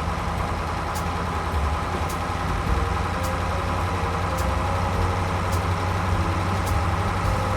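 Heavy truck engine running steadily with a deep, even rumble, as of a crane truck on its way, with a faint tick about once a second.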